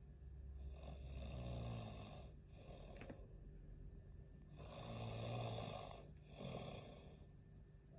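A man snoring in his sleep: two long, rattling snores about four seconds apart, each followed by a shorter breath.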